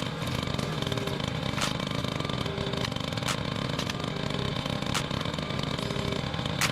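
An engine running steadily, with a sharp click and a short low tone repeating about every second and a half.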